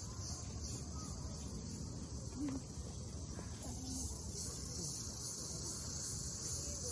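Insects, crickets or cicadas, chirping in a steady high pulsing chorus over a low outdoor rumble.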